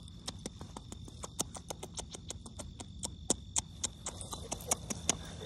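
An irregular run of sharp clicks, about four or five a second, over the steady high drone of crickets in a grassy field.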